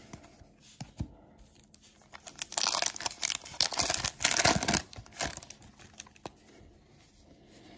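A trading card pack's crimped wrapper being torn open and crinkled, a dense crackling that starts about two and a half seconds in and lasts about two seconds, with a few light clicks before and after.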